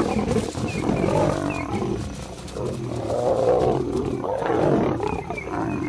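Lions fighting: a male lion clashing with two lionesses, with loud, rough roaring that goes on without a break.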